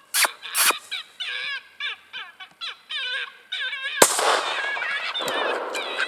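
A single rifle shot about four seconds in, followed by a short wash of noise. All around it, a quick run of high, wavering squeals repeats, the kind of distress sound an electronic predator caller plays.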